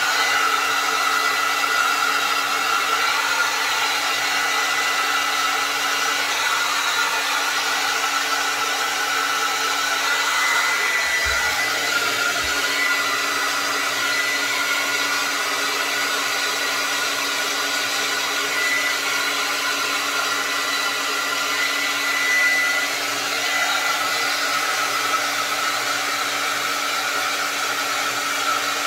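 Conair Ionic Conditioner hand-held hair dryer running steadily: a constant blowing hiss with a steady high whine.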